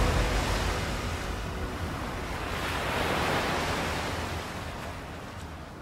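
Ocean surf: a wave washes in, swelling about halfway through, then the sound slowly fades out.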